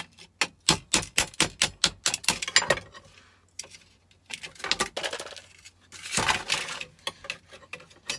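Small metal scrap pieces clicking and clinking as they are sorted through by hand, with a quick run of sharp clicks over the first three seconds, then looser rattling and rummaging.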